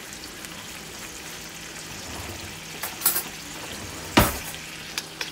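Cubed raw chicken breast sizzling steadily in hot oil in a wok, with a few sharp clicks over it, the loudest about four seconds in.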